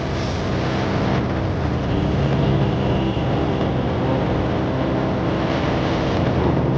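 A steady, low engine rumble with a hum, unbroken throughout.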